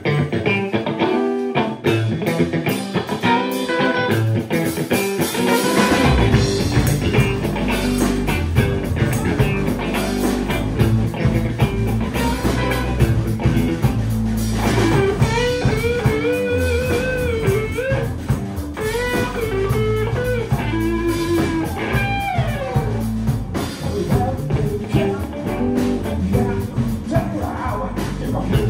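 Live rock band playing electric guitar, bass and drum kit. The opening is lighter, and the bass and drums come in fully about six seconds in, under bending lead lines.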